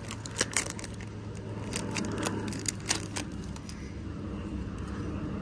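Foil Pokémon booster-pack wrapper crinkling and trading cards rustling as they are slid out and rearranged by hand, with a few sharp crackles in the first three seconds. A low steady hum under it stops about three seconds in.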